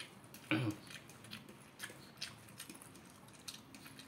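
Quiet hand-eating sounds: fingers picking rice off a ceramic plate, with scattered small clicks. A brief voiced sound about half a second in is the loudest thing.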